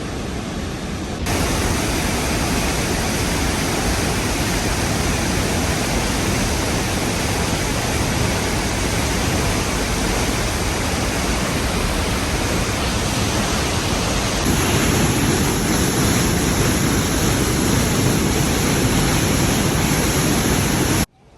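Loud, steady rush of Trümmelbach Falls' glacier meltwater cascading through its rock gorge inside the mountain. It gets louder about a second in and again about two-thirds of the way through, then cuts off just before the end.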